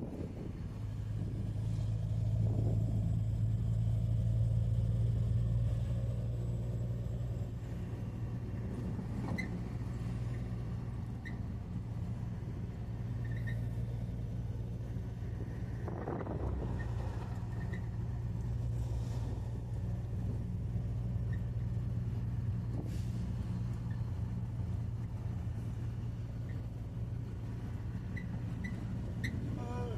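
A truck's diesel engine running steadily while driving, heard from inside the cab as a low drone with road noise; the engine note swells for a few seconds near the start and then settles.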